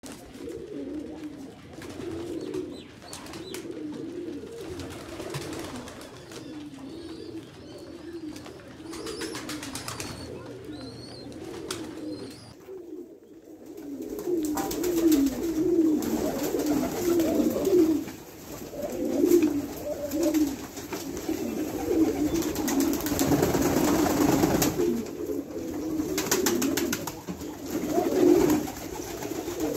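A flock of fancy pigeons cooing continuously, many low, wavering calls overlapping. The cooing gets louder about halfway through.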